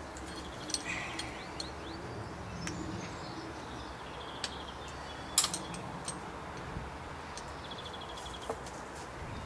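A spanner clicking and tapping against metal while working at a motorcycle engine's cylinder, in scattered single clicks, the sharpest about five and a half seconds in. Birds chirp throughout.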